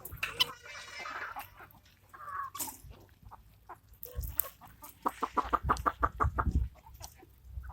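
Country chickens clucking, with a quick run of clucks near the end.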